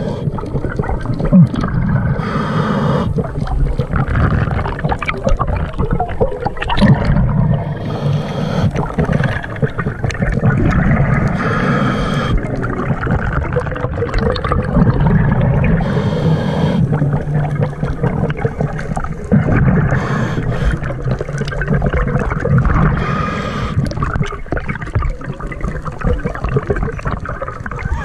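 Scuba diver's regulator breathing heard underwater: a rush of bubbles and hiss recurring roughly every four seconds over a steady low gurgling rumble.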